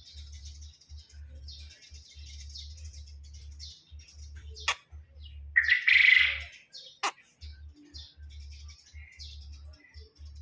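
Small birds chirping in many short, high calls throughout. About halfway through there is a loud, harsh hiss lasting about a second, with a sharp click just before it and another just after.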